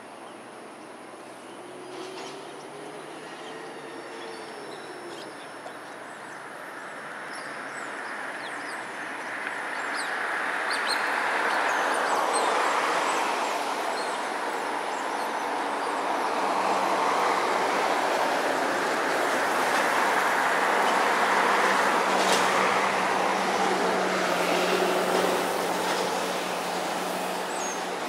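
Noise of a passing vehicle, building up over the first several seconds and staying loud for most of the stretch, with a low steady hum joining about halfway through.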